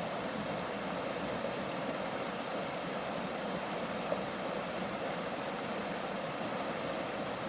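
Mountain valley stream flowing, a steady even rush of water.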